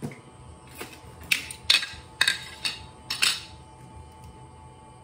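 A quick series of about eight sharp knocks and clinks of hard objects, bunched over about two and a half seconds.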